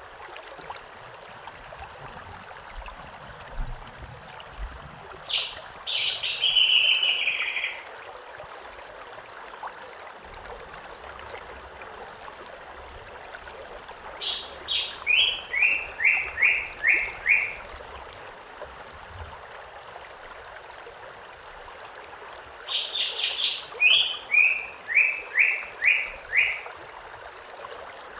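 A river or stream flowing steadily, with a songbird singing three phrases several seconds apart; the last two each open with a few high notes and end in a quick run of about five lower notes.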